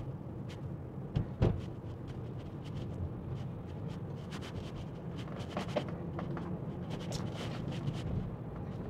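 Steady low road and tyre rumble inside a moving Tesla's cabin, with scattered light clicks and one louder thump about a second and a half in.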